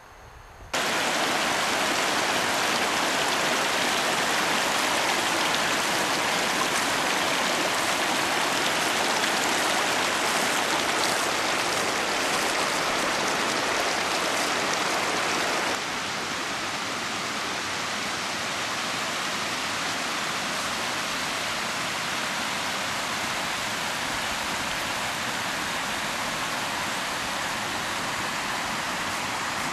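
Small mountain creek rushing over rocks: a steady wash of water that starts abruptly about a second in and drops a little in level about halfway through.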